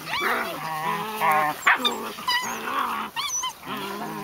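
White Swiss Shepherd dogs and puppies making play noises: low growls mixed with high whines and yips, over and over, as they wrestle.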